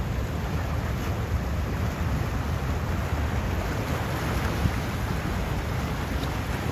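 Ocean surf breaking and washing over a rocky shore: a continuous wash of water with no single crash standing out, and wind rumbling on the microphone underneath.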